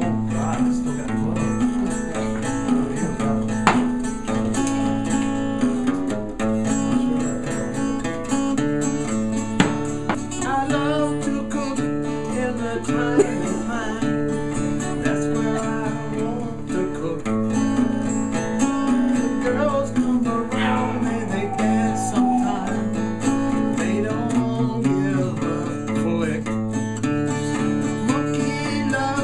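Acoustic guitar music in a country style, with chords changing steadily throughout.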